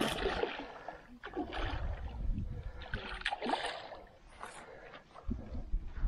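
A hooked carp, about 13 kg, splashing and thrashing at the water's surface beside a landing net as it is drawn in, in several irregular bursts of splashing.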